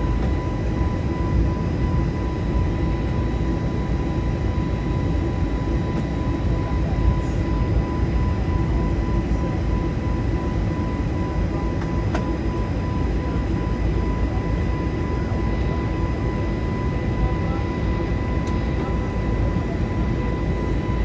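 Steady cabin roar of an Airbus A321neo under way, a low rumble of engines and airflow with a thin steady high tone running through it.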